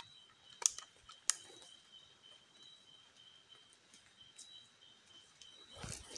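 Steady high-pitched chirring of night insects, with two sharp clicks close together about a second in and brushing rustle through leafy undergrowth near the end.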